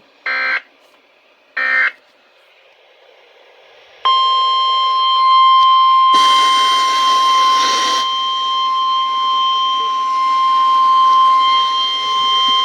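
Weatheradio Canada alert signalling through a weather radio receiver. It starts with two short electronic data bursts about a second apart, the end of the SAME header that codes the warning. About two seconds later a loud, steady single-pitch alarm tone starts: the 1050 Hz warning tone that announces a new severe thunderstorm warning. A rush of static comes over the tone for about two seconds near the middle.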